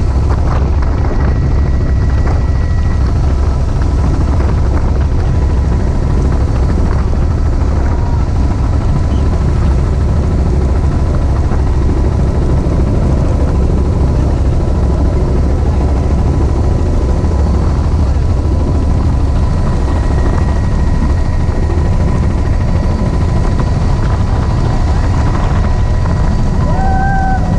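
Helicopter engine and rotor running steadily in cruise flight, heard from inside the doors-off cabin as a loud, unbroken heavy rumble with faint steady whining tones above it.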